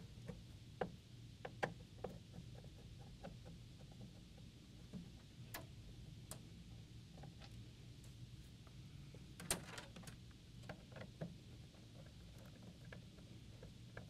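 Faint scattered clicks and ticks of a No. 2 Phillips screwdriver working the mounting screws of an ATM keypad, with a short burst of clicks about nine and a half seconds in. A low steady hum sits underneath.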